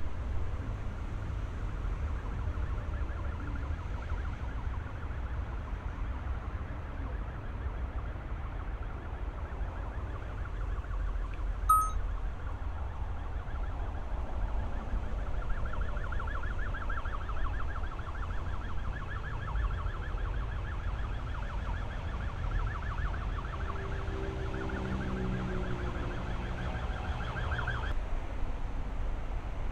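A fast-warbling siren-like alarm tone, stronger in the second half, cutting off suddenly near the end, over a steady low rumble. A single sharp click just before halfway.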